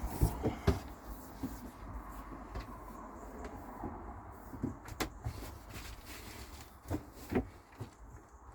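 Knocks and clunks from working a cable through the boat's fittings: a quick cluster in the first second, one at about five seconds and two more near the end, over a low steady rumble.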